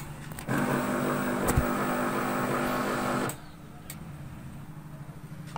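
HP LaserJet Pro MFP M126nw laser printer running its power-on start-up cycle. The internal mechanism runs steadily for about three seconds, with a single click partway through, then stops abruptly.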